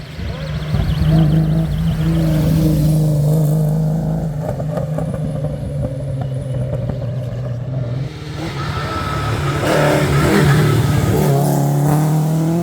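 Rally car engine running loud at held revs, dipping briefly about eight seconds in, then revving up again with a rising note near the end.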